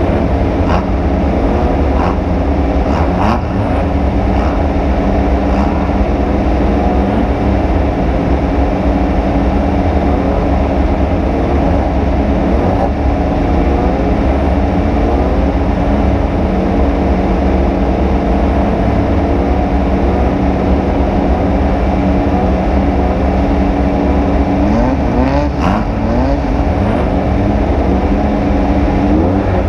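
Off-road race vehicle engine running hard at speed over heavy rumbling noise. The engine pitch climbs and drops several times near the end, and a few sharp knocks come early on and again near the end.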